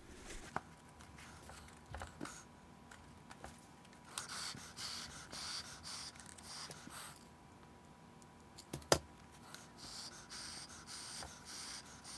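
Faint rustling and scraping of hands pressing and handling a foam puppet head and its fabric-covered cardboard mouth plate, in two stretches, with a few light clicks and a sharper tap about nine seconds in.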